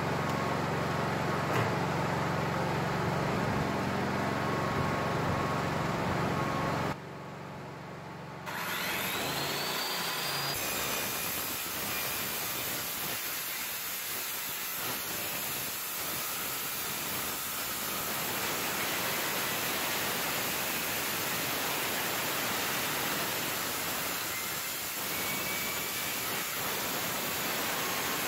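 Corded circular saw with its blade mounted backwards cutting a ribbed steel siding panel: a steady harsh noise. About seven seconds in it drops away for a second and a half, then comes back with a short rising whine and runs steadily again.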